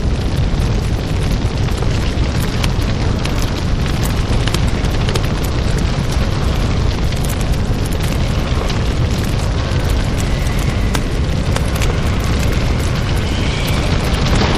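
Designed monster sound effect for the Enenra smoke creature: a steady, loud, deep rumble with dense crackling throughout, like a large fire or eruption.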